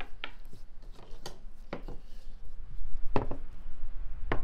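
A few light knocks and taps of kitchenware on a work surface, spaced irregularly, the two loudest about three seconds in and near the end.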